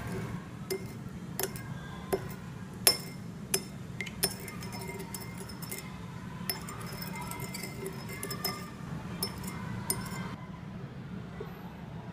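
Metal spoon stirring a dark sauce in a glass bowl, clinking against the glass about once or twice a second, loudest in the first few seconds. The clinking stops shortly before the end, over a steady low hum.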